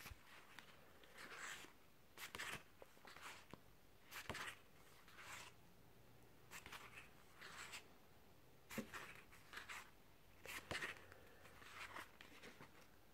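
Paper pages of a softcover artbook being turned one after another: faint, soft rustles about once a second.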